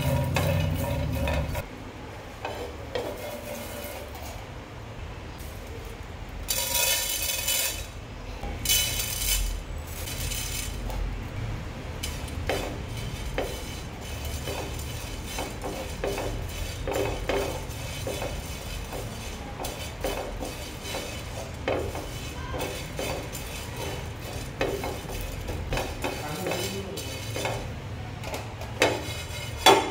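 A spatula stirring and scraping in a nonstick frying pan, dry-roasting garlic cloves and then coriander seeds, in irregular strokes. There are two louder rattling bursts about 7 and 9 seconds in, and a sharp click near the end.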